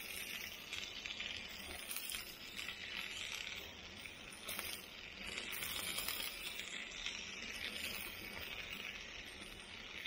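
Hamburger patty sizzling steadily on the griddle of a Coleman camp stove, with faint crackles now and then.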